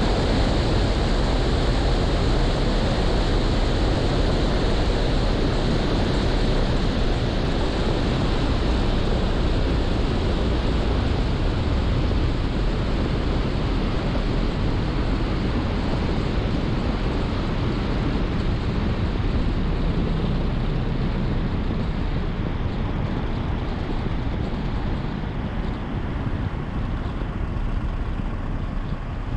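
Steady rushing wind noise from airflow over an exterior camera on a Cessna 210 Centurion rolling along the runway with its engine dead and propeller stopped after a catastrophic engine failure. No engine is heard, and the noise eases a little near the end as the plane slows.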